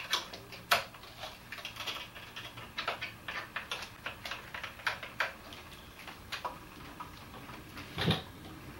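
Irregular small clicks and taps of handled bicycle parts as a plastic fork spacer is fitted around the quick release into the fork ends, with a sharper click about three-quarters of a second in and a louder knock near the end.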